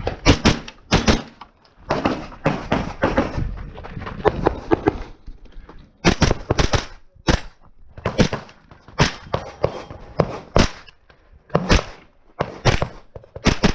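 Pistol-caliber carbine firing a long string of rapid shots, mostly in quick pairs with short pauses between them.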